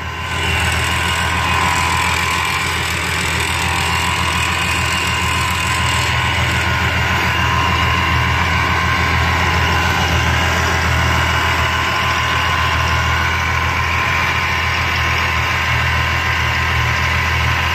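2010 Camaro's 3.6-litre V6 with a newly fitted Vortech supercharger idling steadily on its first start after the install.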